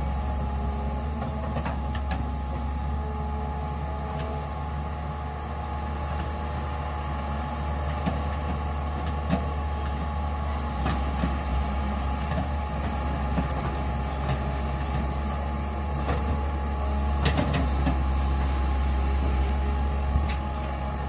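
Tata Hitachi hydraulic excavator's diesel engine running steadily as the machine digs and swings, a low drone with a thin steady high tone over it. A few sharp clanks come through, mostly in the second half.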